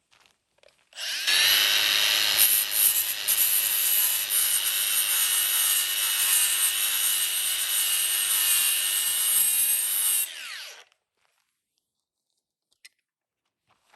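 Makita DGA519 18 V brushless cordless angle grinder running: it spins up about a second in, runs at a steady high whine for about nine seconds, then winds down quickly once released, as the soft start and electric brake work.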